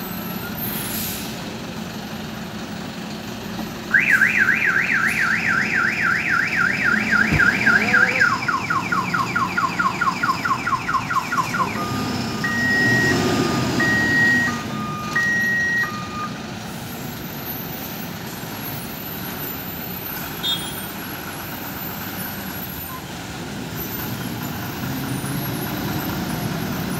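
Electronic multi-tone vehicle alarm starting about four seconds in and cycling through its patterns: a fast up-and-down warble, then a lower warble, then alternating high and low beeps for a few seconds before it stops. A steady diesel truck engine rumble runs underneath.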